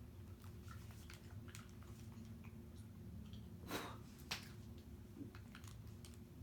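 Faint chewing of a jelly bean: soft mouth clicks and squishes over a low steady hum, with two short breathy noises about four seconds in.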